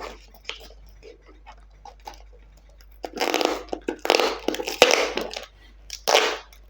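Courier packaging being torn open by hand: small crinkles and handling noises, then three rough ripping tears in the second half, the middle one the longest.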